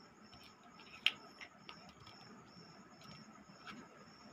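Light clicks and taps of a plastic torch housing being handled as its cover is fitted, with one sharper click about a second in.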